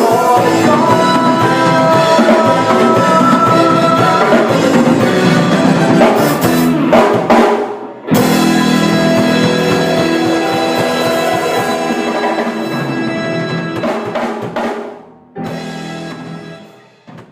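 Instrumental ending of a band arrangement of a song, with no singing: drum kit and bass under sustained chords. The music cuts out briefly about halfway, comes back, then fades away, with two short last hits near the end.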